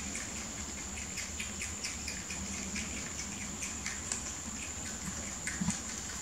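Rabbits chewing and nibbling leafy green stems: rapid, irregular crisp crunching and snipping, over a steady high-pitched whine, with a couple of soft knocks near the end.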